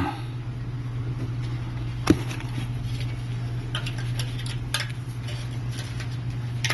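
Light clicks and taps of small parts being handled on a repair bench, with one sharper click about two seconds in, over a steady low hum.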